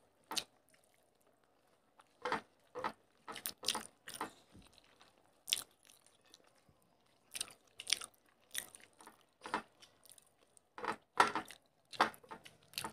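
Close-miked chewing and mouth smacks of people eating rice and fish curry with their hands: short, irregular clicks and smacks with quiet gaps between them.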